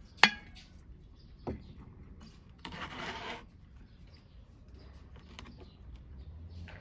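Aluminium lid clinking against the rim of a large aluminium pot as it is lifted off: one sharp metallic clink, then a lighter knock about a second later. A short rustling scrape follows near the middle.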